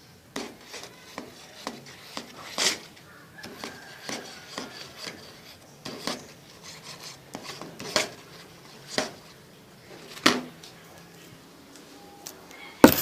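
Homemade shampoo-and-dish-soap slime being squished and handled in a container: irregular short squishes, taps and clicks, with a sharper clatter near the end.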